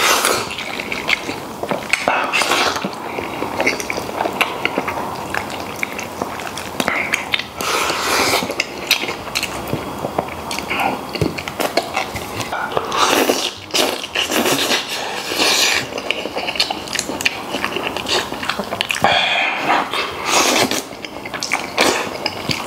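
Close-miked eating sounds: a man chewing and slurping braised beef trotter meat straight from a bowl, with chopsticks clicking against the bowl in irregular bursts.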